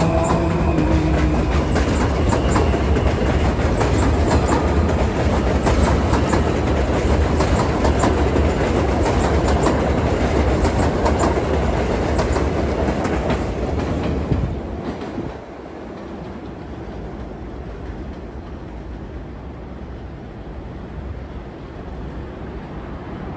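New York City subway train pulling out along an elevated steel track: a steady rumble with quick clicks of wheels over rail joints as the cars pass. A brief electric motor whine fades in the first second or so, and about 15 seconds in the sound drops off sharply as the last car clears, leaving fainter background noise.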